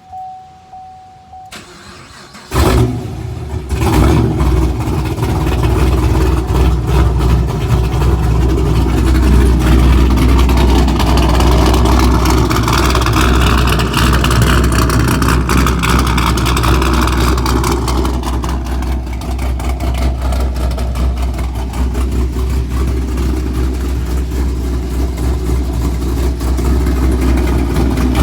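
2014 Chevrolet Camaro SS 1LE's 6.2-litre LS3 V8, fitted with an aftermarket cam and exhaust, cranked and started about two and a half seconds in, flaring loudly as it catches. It then settles into a loud, choppy, lumpy idle from the cam.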